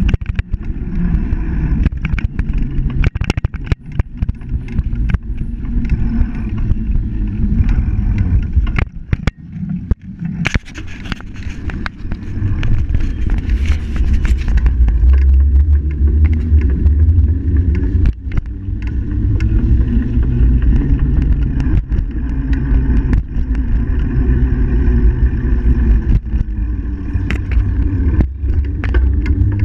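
Ride noise picked up by a handlebar-mounted action camera on a bicycle rolling over paved sidewalk: a heavy low rumble of wind and road, with frequent sharp knocks and rattles as the bike goes over bumps.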